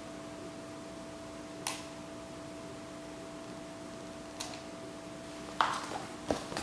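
Steady two-tone hum with a faint hiss from a ZVS-driven, hand-wound flyback transformer arcing inside an incandescent light bulb, the bulb's filament and glass burning. Faint ticks come twice, then a sharp click about five and a half seconds in and a few smaller clicks near the end.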